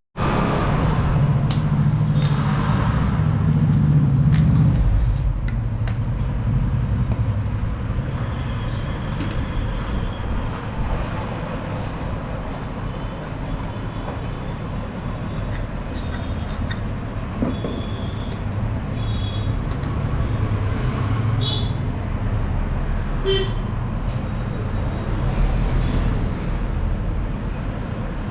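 Road traffic rumbling steadily, heaviest in the first few seconds, with short horn toots here and there, clearest about two-thirds of the way through.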